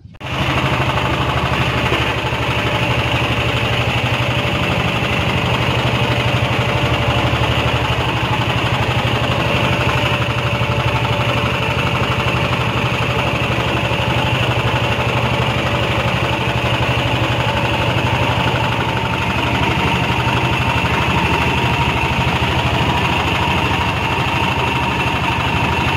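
Boat engine running steadily with an even chugging pulse, loud and close.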